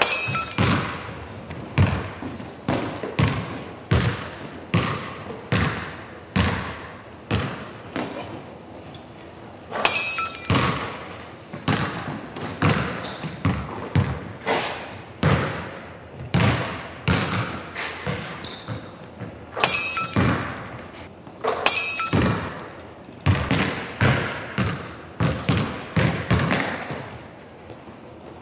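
Basketball dribbled and shot on a hardwood gym floor: repeated bounces, each echoing through the large hall, about one or two a second. Several times, near the start, about ten seconds in and around twenty seconds in, the ball clangs off the rim and backboard. A few short high squeaks are heard too.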